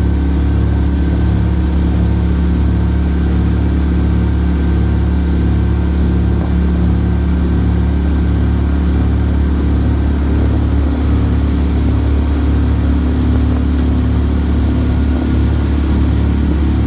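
The motor of a small camo-painted duck boat running steadily under way, a loud, unbroken low drone.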